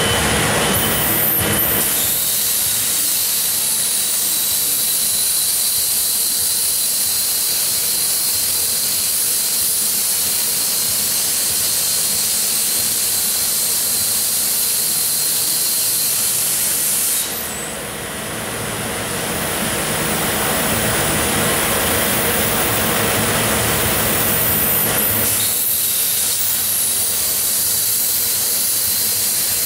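Plasma torch of an AKS dura-kut gantry plasma table cutting a large metal dome: a loud, steady hiss of the arc and cutting gas with a constant high whine, dipping briefly a little past halfway.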